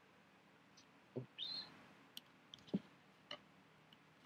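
Faint computer mouse clicks, a few scattered single clicks, with two soft knocks and a short rustle about a second and a half in, over quiet room tone.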